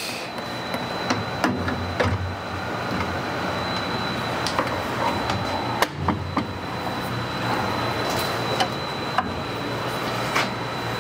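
Table saw rip fence being slid and pushed along its rails, giving scattered clicks and knocks, over the steady whooshing hum of shop machinery with a faint high whine.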